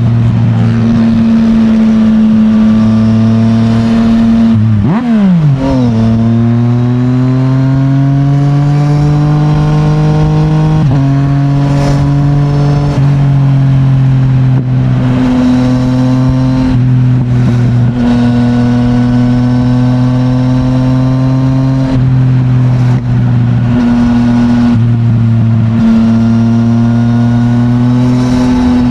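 Yamaha MT-09's three-cylinder CP3 engine running through an Akrapovic full titanium exhaust while riding, mostly at a steady engine speed. About five seconds in the revs drop sharply and pick up again, then climb slowly, with a few brief dips from gear changes or throttle lifts later on.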